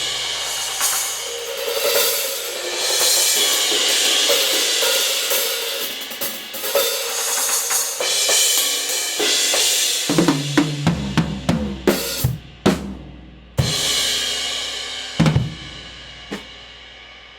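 Drum kit played through Kingdo Artist Modern B20 hand-hammered bronze cymbals: a sustained cymbal wash, then a quick run of drum hits about ten seconds in, a crash near the end, a few more strokes, and the cymbals ringing out and fading.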